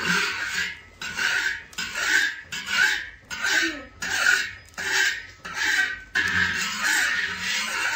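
Metal spatula scraping back and forth across a large iron wok in repeated strokes, about one or two a second, spreading a thin layer of liquid over the hot surface.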